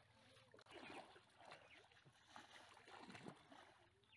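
Faint sloshing and splashing of pond water as people wade through it chest-deep, pulling a net.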